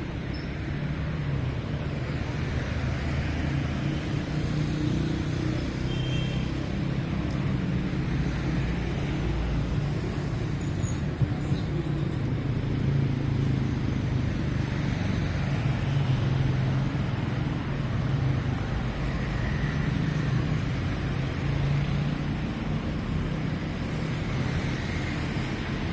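City road traffic: car engines running and passing in a steady, continuous low rumble.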